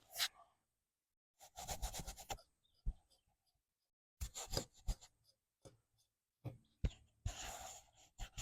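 Wire brush scrubbing a small lawn mower carburetor part: three short spells of scratchy rubbing, with a few sharp clicks in between.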